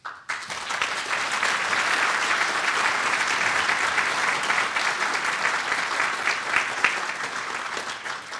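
Large seated audience applauding, many hands clapping at once; the clapping starts right away and begins to die down near the end.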